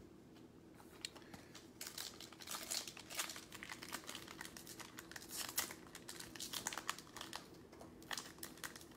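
Foil wrapper of a football trading-card pack crinkling and tearing as it is pulled open by hand, in irregular clusters of crackles starting about a second in.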